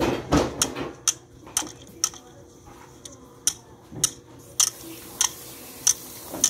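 A series of sharp ticks, roughly two a second with a pause of about a second and a half near the middle, after a louder knock right at the start.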